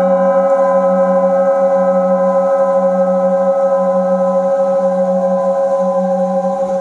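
Several metal singing bowls ringing together in long, steady tones that fade slowly. The lowest tone wavers in a regular wobble.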